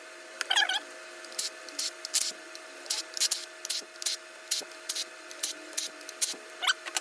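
Hand tools clicking and clanking against engine parts while the rear seal plate is worked on, about two sharp clicks a second with a few brief squeaks, over a steady hum.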